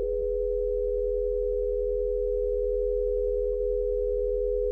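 A steady electronic tone, level and unbroken, over a low hum: a computer-monitor sound effect accompanying scan images and data being transmitted to the screen.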